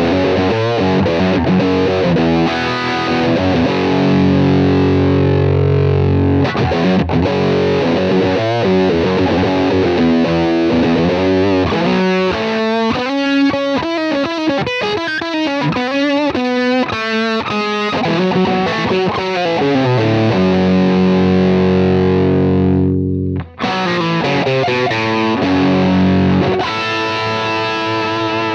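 Overdriven electric guitar played through a UAFX Lion '68 Super Lead amp pedal, an emulation of a Marshall Plexi, with its preamp boost turned up. Sustained distorted chords, then a fast single-note run in the middle, then more ringing chords with a brief stop about three-quarters of the way through.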